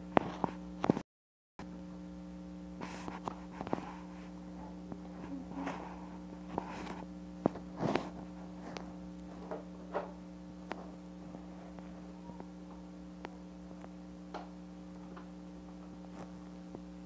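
Steady electrical mains hum, with irregular light clicks and taps scattered through it; the sound cuts out completely for about half a second about a second in.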